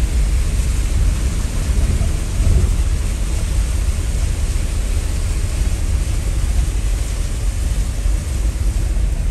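Jeep driving through a shallow stream and onto a dirt track, heard from inside the cabin: a loud, steady low rumble of engine and road noise with an even hiss over it.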